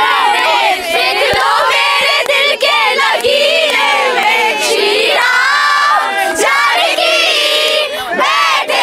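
A group of teenage schoolgirls singing loudly together into a handheld microphone, many voices at once.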